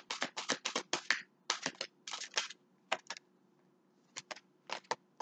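A deck of tarot cards being shuffled by hand: a quick run of short card slaps, about five or six a second, that thins out to a few scattered slaps after about two and a half seconds.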